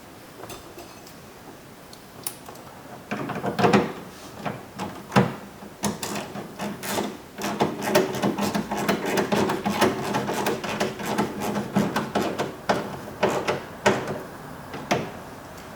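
Hands working a 2000 Buick LeSabre's rear interior door handle and its linkage rods inside the door: a quiet start, then from about three seconds in a run of sharp plastic-and-metal clicks and knocks with rubbing and rattling between them.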